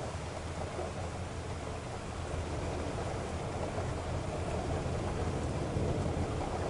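A car driving on a wet road in the rain: a steady rush of tyre and rain noise over a low, even rumble.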